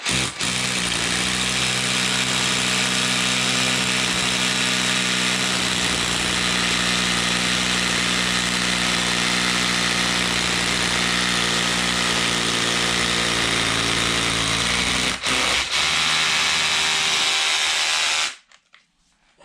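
Cordless Makita SDS hammer drill with a 14 mm bit boring into asphalt tarmac, running steadily. It breaks off briefly about 15 seconds in, runs again for a few seconds, then stops.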